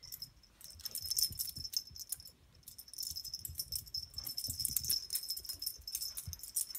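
A dachshund puppy's collar jingling in quick shakes as it tussles with a kitten, with a short break about two seconds in, over soft scuffling on carpet.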